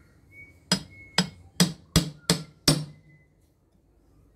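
Claw hammer striking a metal punch held against a water pump's housing: six sharp metal blows in about two seconds, hammering to crack a seal loose.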